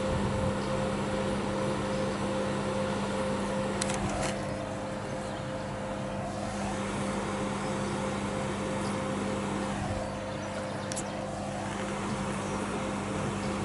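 MÁV class 431 (V43) electric locomotive standing with its transformer and cooling fans running: a steady electrical hum with a constant low drone and a higher tone.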